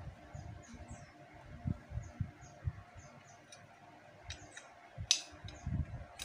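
Light metal clicks and soft knocks as the rocker arms and rocker shaft are handled in a Yamaha Mio M3 cylinder head, with a sharper click about five seconds in.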